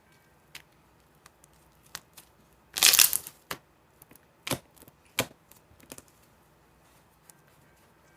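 Fluffy slime being worked by hand: scattered sticky clicks and pops. The loudest is a short crackling burst about three seconds in, followed by two sharper pops.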